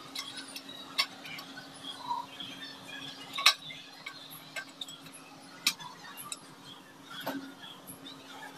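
Sharp metallic clicks and clinks, about six of them a second or so apart, as small screws are fitted into the metal brackets under a glass shelf to clamp the glass tight. A steady low hum runs underneath.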